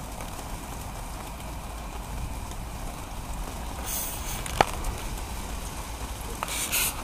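Steady outdoor hiss with a low rumble on a rainy night, broken by one sharp click about four and a half seconds in and short bursts of hiss near the end.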